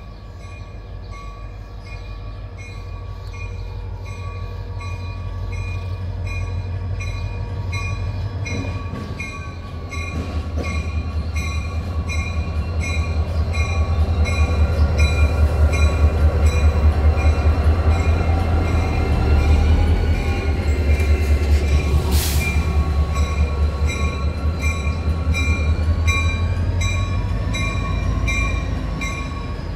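A train passing close by: a heavy low rumble builds, is loudest in the middle and eases off near the end. Over it a high ringing pulses at a fast, even rate throughout, with a brief squeal about two-thirds of the way through and one sharp click.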